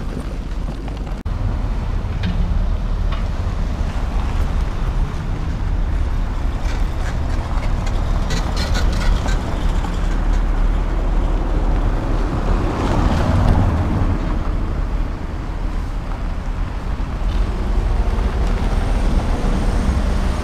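Street traffic: cars and trucks passing on a town road over a steady low rumble, with a vehicle swelling a little louder about two-thirds of the way through.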